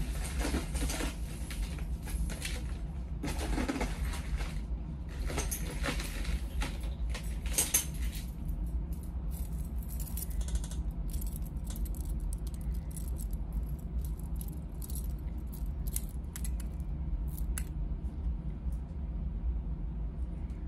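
Metal jewelry (chains, charms and clasps) jangling and clinking as it is rummaged through by hand. There is a run of jangling for about the first eight seconds, then scattered light clicks and clinks, over a steady low hum.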